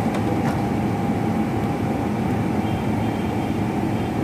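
Steady, loud drone of running machinery, a constant low hum with a few steady whining tones above it.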